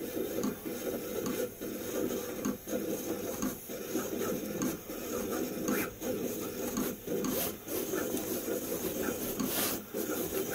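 Vevor 28-inch vinyl cutter (a KI720-type plotter) cutting a complex design at its maximum speed of 800 mm/s. Its motors buzz with a constantly shifting pitch as the cutting head darts back and forth, with frequent short clicks.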